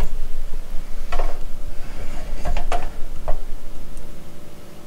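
Handling noise as the camera is picked up and moved: a low rumble with several knocks and scrapes, the sharpest about a second in and around two and a half to three seconds in, dying down near the end.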